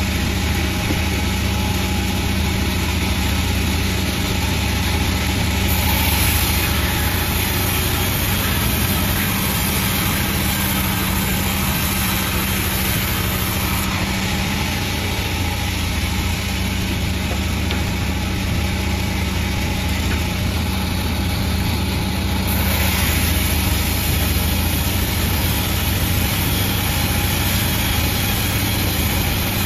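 Panda36 sawmill running steadily with a constant low engine-like hum; the high hiss over it grows and fades a few times.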